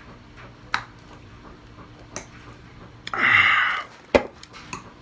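A man drinking from a can: small clicks of the mouth and swallowing, then about three seconds in a loud breathy exhale with a low voice falling in pitch, as after a long drink, and just after four seconds a sharp knock.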